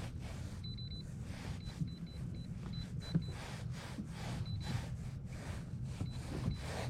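A small motor humming steadily, with soft swells of noise and faint short high beeps now and then.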